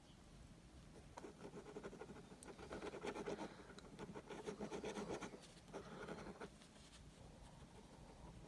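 Ballpoint pen scratching on paper in quick, short, repeated strokes, faint. The strokes start about a second in, are heaviest in the middle and die away after about six seconds.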